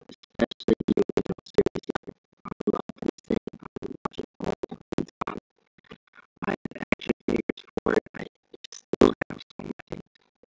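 Choppy music with scratching sounds, broken into many short bursts with brief silent gaps.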